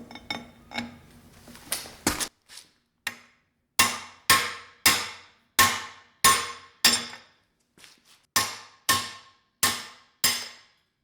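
Hammer blows on metal, trying to drive a stuck bearing out of a classic Mini gearbox: a few light taps, then from about four seconds in a steady run of hard, ringing strikes about two a second, with a brief pause partway through. The bearing is not moving.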